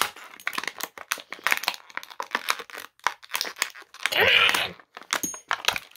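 Clear plastic packaging bag crinkling and tearing in the hands as Beyblade parts are worked out of it, a fast run of small crackles, with a louder, longer burst about four seconds in.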